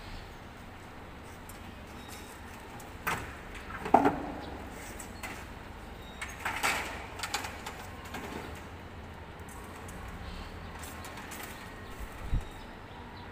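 Knocks and rattles of a glass-paneled aluminum window sash being lifted and handled: a sharp knock about four seconds in, a run of clattering a few seconds later, and a dull thump near the end.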